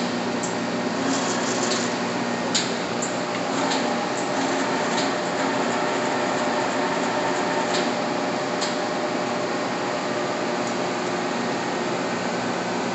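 Giddings & Lewis vertical turret lathe running with a steady mechanical hum made of several constant tones, broken by a few sharp clicks.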